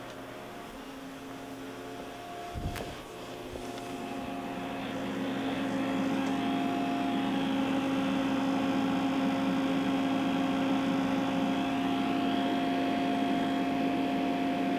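Steady electrical hum and whir of a Haas VF4 vertical machining center, heard through its opened electrical cabinet, with several fixed tones under a haze of noise. There is a single sharp click about two and a half seconds in. The hum grows louder over the next few seconds as the cabinet door opens, then holds steady.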